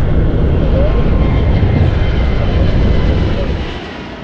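Airbus A350's Rolls-Royce Trent XWB engines at takeoff thrust: a loud deep rumble with a few steady whining tones above it. The rumble falls away near the end.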